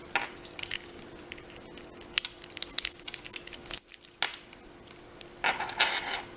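Disc detainer pick working inside a Rolson disc detainer padlock: scattered small metallic clicks and clinks as the discs are turned, which turn freely with no tension on them. A louder run of clinks comes near the end.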